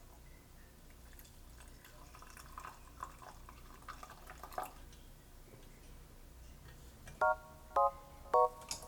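Faint light clicks and taps of kitchenware for the first few seconds, then four short, plinking chime notes, each at a slightly different pitch, from about seven seconds in: the opening of mallet-instrument background music.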